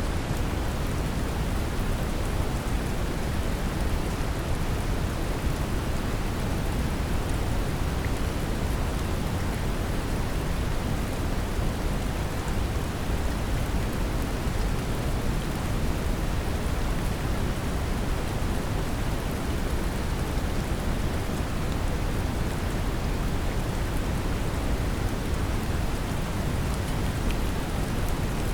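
Steady brown noise mixed with the hiss of gentle rain, a deep, even rumble with no changes or breaks.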